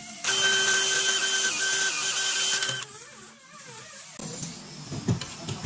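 Power drill running steadily for about two and a half seconds as it drives a self-drilling screw through a steel exhaust clamp band into the pipe, then stopping abruptly. A few light knocks follow near the end.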